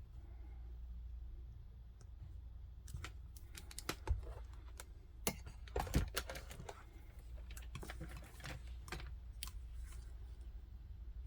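Irregular light clicks and taps of small repair tools and parts being handled, in scattered clusters, over a steady low hum.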